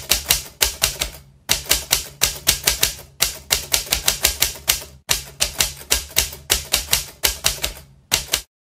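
Typewriter keys clacking in quick, uneven runs of about five strokes a second, with brief pauses between runs, stopping just before the end. A steady low hum sits underneath.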